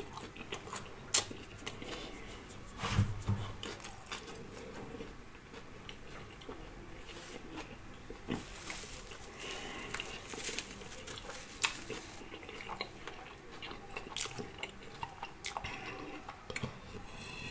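Close-miked chewing and lip-smacking on a mouthful of pita bread, with many small wet clicks. Near the end, a swig from a plastic soda bottle.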